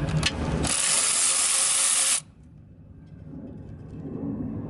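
A steady, loud hiss lasting about a second and a half that starts and cuts off abruptly, with a few sharp clicks just before it.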